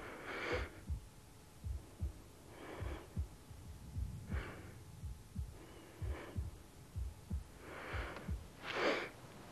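A steady low heartbeat thumping under slow, deep breaths, about six breaths in all.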